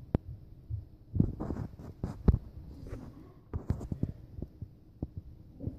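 Handling noise on a phone's microphone: irregular clicks, knocks and rustling as the phone is held and moved.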